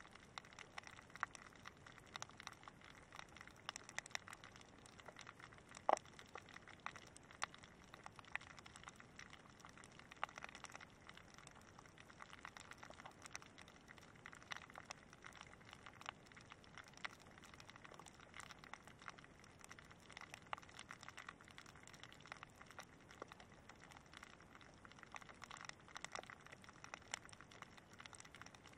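Snapping shrimp crackling underwater: a faint, steady stream of scattered sharp clicks, with one louder click about six seconds in.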